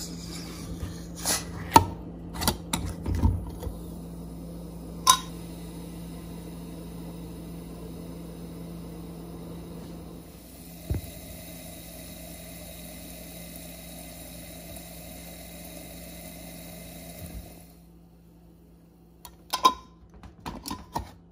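Mason jar of fermenting sake starter (rice and koji) being opened: the tail of a small hiss of escaping gas, then the metal screw lid clicking and knocking against the glass a few times. A steady faint fizzing of fine bubbles in the starter follows, the sign that it is actively fermenting and ready. Near the end the lid clicks again as it is screwed back on.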